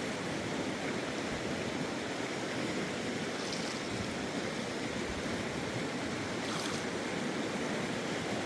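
Steady rush of a flowing stream, an even water noise with no break.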